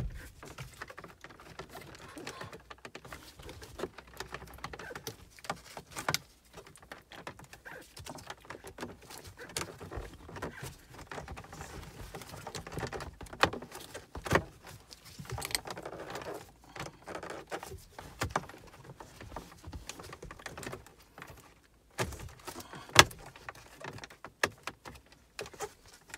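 Small clicks, taps and rustling as gloved hands handle and press the centre-console trim around an automatic gear selector, with a few sharper clicks in the middle and one near the end.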